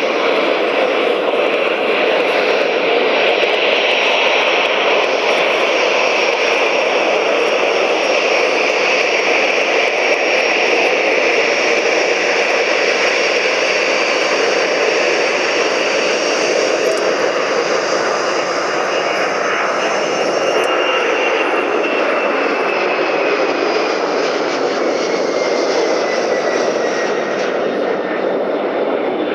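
Boeing 767-300ER's twin GE CF6-80C2 turbofans at take-off thrust through the take-off roll, lift-off and climb-out: a loud, steady jet rumble and roar. A thin high whine slides down in pitch over the last several seconds as the aircraft climbs away.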